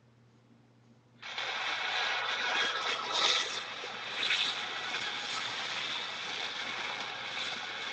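A custom iPhone ringtone playing through the phone's speaker, starting about a second in: a dense, steady, mechanical-sounding noise with a couple of louder swells.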